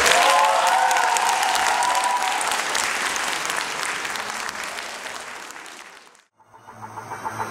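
Theatre audience applauding, with a few cheers in the first couple of seconds, the clapping fading out and stopping about six seconds in. A low hum starts near the end.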